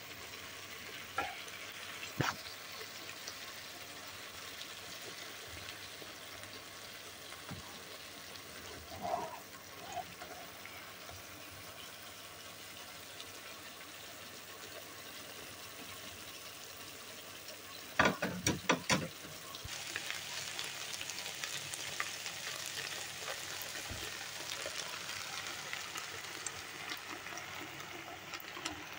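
Green beans, potatoes and ground meat frying in a nonstick pan with a steady sizzle, and a metal spoon stirring and knocking against the pan now and then. About eighteen seconds in comes a quick run of sharp knocks, and after it the sizzle grows louder and brighter.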